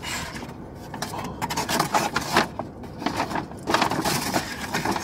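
Paper takeout bag rustling and a molded fibre food tray being handled and pulled out, with irregular scrapes and light knocks.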